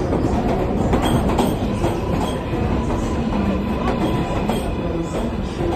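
R188 subway cars of a 7 express train rolling past at the platform as the train pulls in: a steady rumble with the wheels clacking over rail joints every half second or so, and a faint steady whine.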